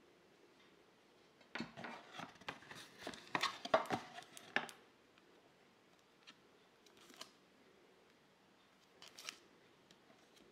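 Hands handling a wristwatch and its packaging: a quick run of plastic clicks, scrapes and rustles in the first half, then a few single clicks later on.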